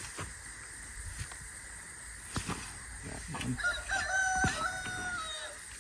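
A rooster crows once: one long call with a few short breaks, starting about halfway through. A few light knocks come before it.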